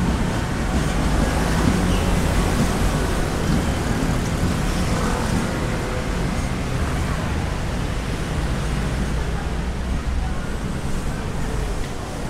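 Steady city traffic noise: a continuous low rumble of road vehicles with no single event standing out.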